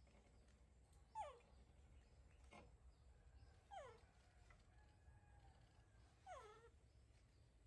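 Baby macaque giving three short whimpering cries that slide down in pitch, about two and a half seconds apart: begging calls while food is being peeled beside it.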